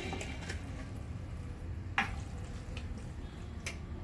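A steel ladle stirs thick chicken curry in a brass pot with a wet squelch, and a few sharp clinks of metal on metal. The loudest clink comes about two seconds in.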